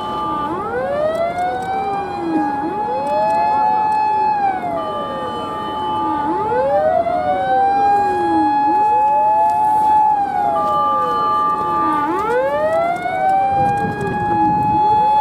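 Several fire and rescue truck sirens wailing together as a convoy drives by. The wails overlap out of step, each rising, holding a high note and then sliding down over a few seconds. A heavier vehicle rumble comes in near the end.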